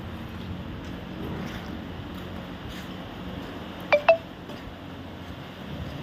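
Two quick bright clinks about a fifth of a second apart, the second a little higher, over a low steady hum.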